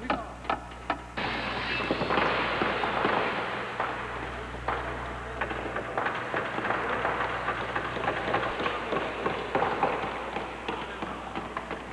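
A hammer driving nails into a wooden frame, about four quick blows in the first second. Then a dense crackling noise fills the rest.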